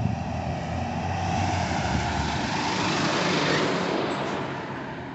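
A motor vehicle passing along the street, its engine and tyre noise swelling to a peak about three seconds in, then fading away.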